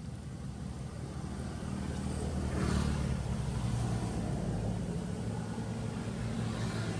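Motor vehicle engine humming nearby, with a swell of engine and road noise about two and a half seconds in as a vehicle passes, and another near the end.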